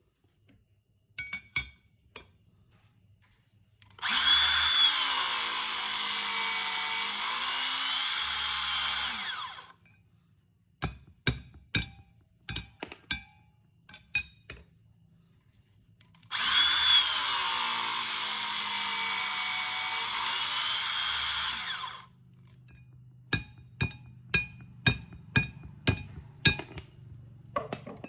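Makita 18V cordless hydraulic metal cutter running twice for about five seconds each time, its motor pitch dipping mid-run and recovering as it works through the cut. Between and after the runs come short, sharp metallic clicks and clinks.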